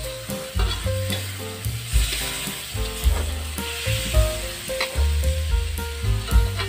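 Chopped carrots, shallots and garlic sizzling in oil in a hot wok while a metal spatula stirs and scrapes them.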